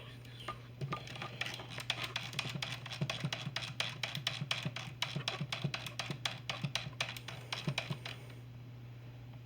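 Typing on a keyboard: rapid, irregular key clicks that stop about a second and a half before the end, over a steady low hum.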